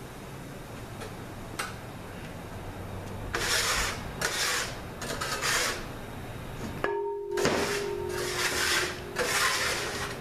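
Irregular rubbing and scraping strokes of hands and transmission parts on a metal workbench, starting a few seconds in, with a faint steady hum in the second half.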